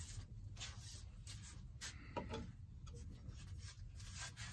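Faint scuffs and rustles of a person moving about and handling things by a workbench, with one slightly stronger scrape about two seconds in.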